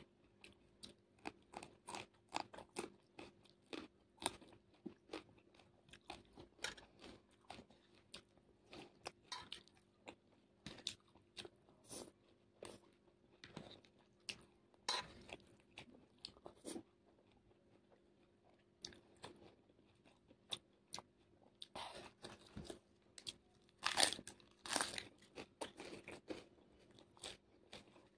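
Close-miked eating: crisp crunches of raw vegetables and chewing, a short crunch every half-second to a second. A cluster of louder crunches comes about four seconds before the end. A faint steady hum runs underneath.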